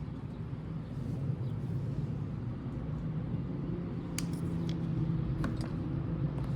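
Steady low motor hum, with a few light clicks between about four and six seconds in.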